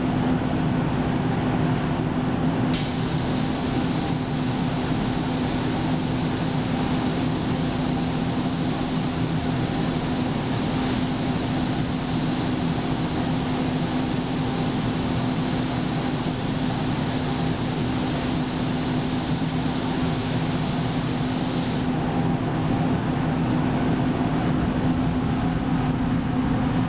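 Clothes-cleaning booth's fan running with a steady hum; about three seconds in its air-cleaning cycle starts, adding a high hiss and a thin high whine that run for about nineteen seconds and then cut off suddenly, leaving the fan hum.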